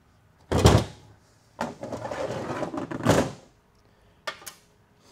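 A TH350 automatic transmission's metal valve body is handled on a sheet-metal workbench: a loud metallic clunk as it is set down about half a second in, a stretch of scraping and sliding metal, then two light clicks near the end.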